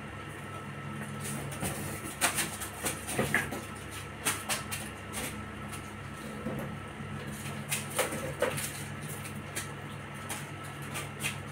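Irregular light taps, rubs and brief squeaks of kittens pawing and nosing inflated latex balloons on a tiled floor, bunched in two spells, over a steady low hum.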